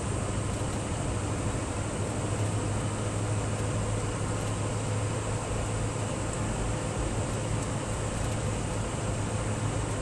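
Scania R620's V8 diesel engine running steadily, heard inside the cab as an even low drone, with road noise from the tyres on the snowy surface.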